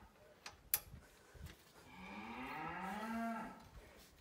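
Cattle mooing: one long moo starting about two seconds in. Near the start, a couple of sharp metallic clicks.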